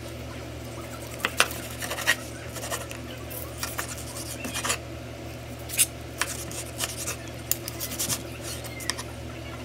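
Large chef's knife cutting through roast pork with a crusty skin and knocking and scraping on a wooden cutting board: irregular crunchy clicks and short scrapes starting about a second in, over a steady low hum.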